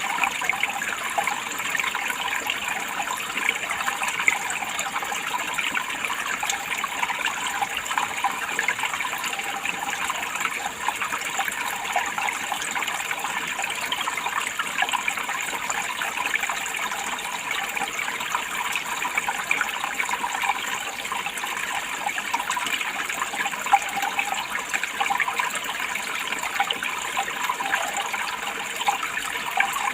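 Running water: a steady, unbroken rush of flowing water.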